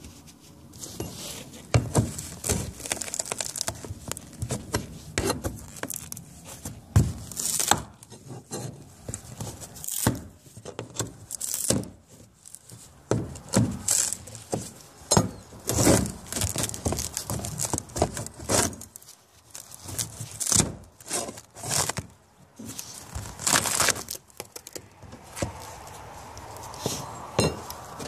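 Fiberglass deck skin of a sailboat being pried up with a pry bar, cracking and tearing away from the rotted wood core beneath, in irregular sharp cracks and scrapes a second or two apart.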